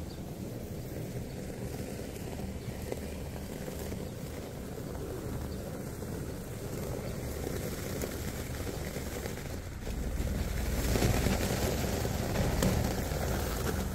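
SsangYong G4 Rexton SUV reversing slowly over crushed-stone gravel: a low engine rumble with tyres crunching on the loose stone. It grows louder about ten seconds in as the car backs in close.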